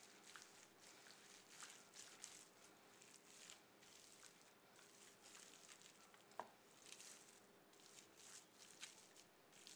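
Faint, irregular crinkling and rustling of plastic wrap as a wooden rolling pin and hands press and roll soft seitan dough over it. A faint steady hum sits underneath.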